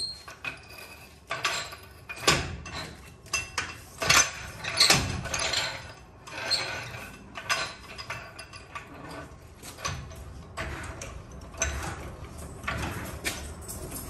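Irregular metallic clanks, rattles and clicks as a floor jack is handled and rolled across a concrete floor under a pickup's front end.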